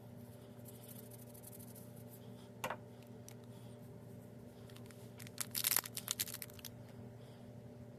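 Slime being squeezed and stretched by hand, giving small sticky crackles and clicks: one short crackle, then a denser run of crackling clicks a few seconds later, over a low steady hum.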